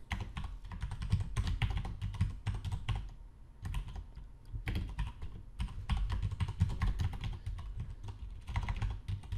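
Typing on a computer keyboard: a fast run of keystroke clicks, with a short pause about three seconds in before the typing resumes.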